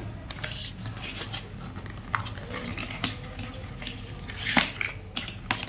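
Plastic headphones being handled: irregular small clicks and rustles, with a sharper click about four and a half seconds in.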